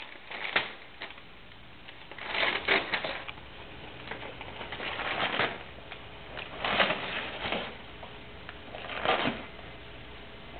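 Brown packing paper crinkling and rustling in bursts every couple of seconds as a cat bites and burrows into it.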